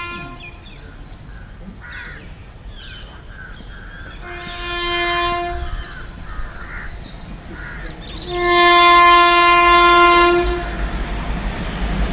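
WAP-7 electric locomotive's air horn sounding as the train approaches at speed: a brief tail of a blast at the start, a blast of about a second and a half about four seconds in, and a louder, longer blast about eight seconds in. The rumble of the oncoming train grows near the end.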